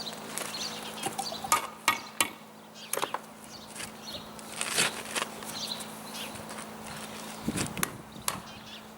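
Block-laying work: irregular sharp knocks of a trowel and concrete blocks, the loudest in the first three seconds, with scraping of mortar around the middle.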